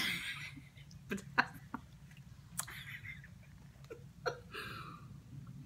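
A person drinking from a plastic cup: several short, separate swallowing gulps and mouth clicks, after a short breathy exhale at the start.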